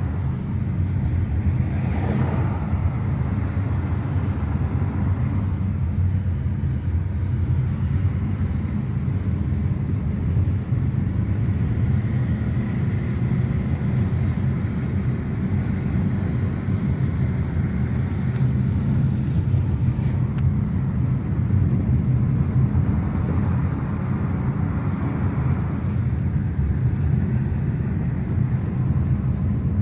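2023 Nissan Qashqai on the move: a steady low rumble of engine and road noise while cruising.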